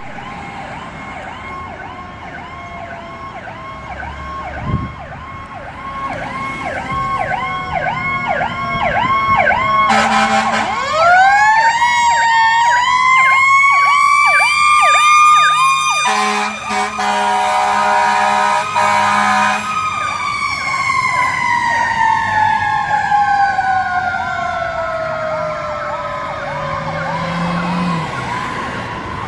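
Fire truck siren on an emergency response: a fast yelp cycling about three times a second, then about ten seconds in a wail rises and holds high. A steady horn blares for a few seconds, and then the wail slowly falls in pitch.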